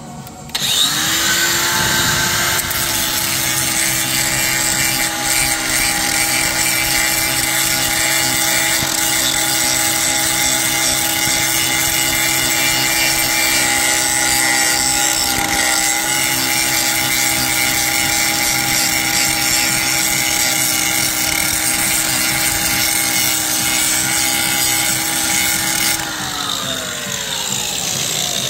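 Electric angle grinder spinning up and grinding surface rust off a BMW Z3's steel sill: a steady high whine with a harsh rasp of disc on metal. About 26 seconds in the rasp stops and the whine falls away as the grinder is switched off and winds down.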